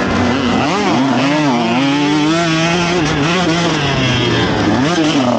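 KTM SX150's single-cylinder two-stroke motocross engine at racing speed, the rider blipping and rolling the throttle so the engine's pitch rises and falls several times.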